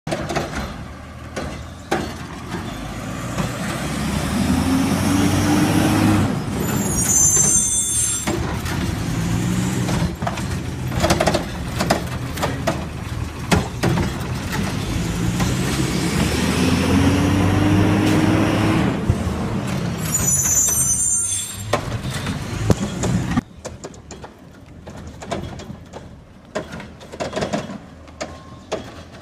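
Curotto-Can garbage truck working a stop: the diesel engine revs up in a rising whine to drive the hydraulic cart arm, there are knocks and clanks, and then a sharp air-brake hiss. The cycle runs twice, with the hisses about seven and twenty-one seconds in. After about twenty-three seconds it drops to a quieter, more distant truck sound.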